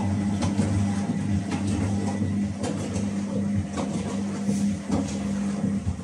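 Whirlpool TDLRS 70210 top-loading washing machine running in its wash stage: a steady low hum with irregular clicks and rattles. The hum cuts off suddenly near the end.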